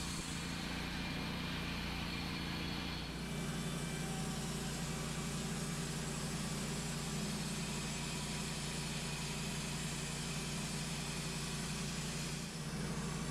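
Portable sawmill's engine running steadily, its sound changing about three seconds in.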